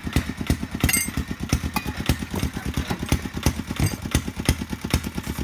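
An engine idling with an even, steady thumping beat of about six pulses a second, the beat of a single-cylinder engine. A brief high chirp sounds about a second in.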